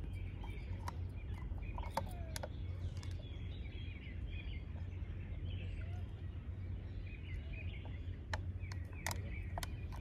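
Small birds chirping and twittering over a steady low background rumble, with a few sharp clicks about two seconds in and near the end.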